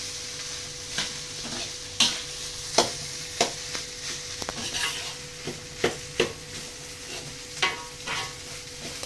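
Fried rice sizzling in a hot pan while a metal spatula stirs and scrapes it, giving irregular sharp scrapes and clacks about once or twice a second over a steady sizzle.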